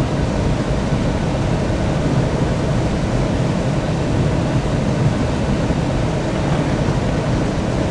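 Steady, even rumble and hiss of a jet airliner, heaviest in the low range, with no change in level.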